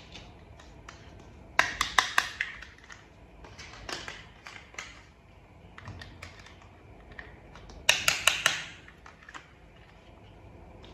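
Small plastic toy parts being handled and fitted together: two quick bursts of rapid clicking and rattling, about a second each, near the start and past the middle, with scattered lighter ticks and taps between.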